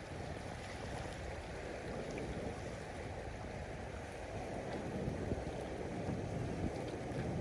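Ocean waves: a steady wash of moving seawater.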